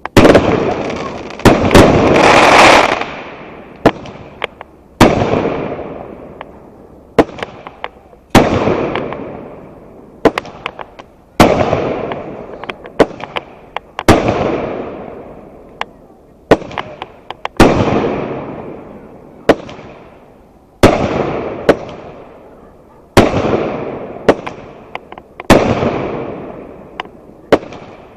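Fireworks going off in steady succession: a sharp bang every second or two, each trailing off in a rolling rumble, with small crackling pops between them and a dense volley about two seconds in.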